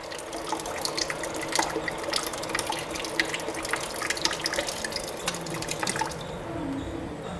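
Water running and dripping from an instant electric water heater's outlet, many small splashes that thin out about six seconds in.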